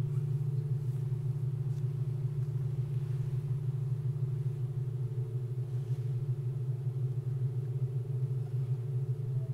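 Cathedral pipe organ holding a dense low tone cluster, a steady rumbling mass of neighbouring pitches that beat against each other, with a fainter higher cluster above it.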